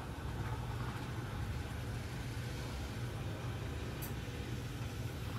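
Steady whir of a model train locomotive's small electric motor running on the track, with a faint click about four seconds in.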